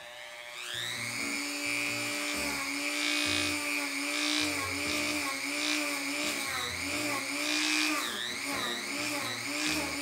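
Dremel rotary tool with a grinding stone spinning up about half a second in, then grinding into the snowblower's plastic lever housing. Its high whine wavers and dips again and again as the bit bites into the plastic.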